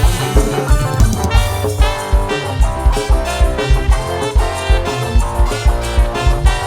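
Loud music with a heavy, steady bass-drum beat, about three kicks a second, under sustained instrument lines.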